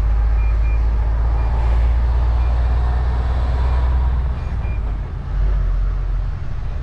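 Truck's diesel engine running at low speed, heard from inside the cab as a steady low rumble that dips briefly about four seconds in. Faint short high beeps sound now and then over it.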